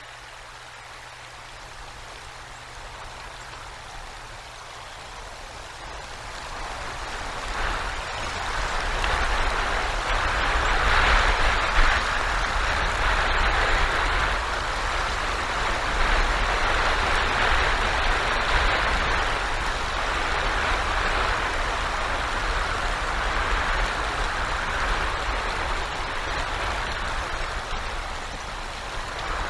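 Winter storm noise of wind and icy rain, with a low rumble and a hiss on the outdoor camera microphone. It starts faint and swells about a quarter of the way in to a loud, steady rush.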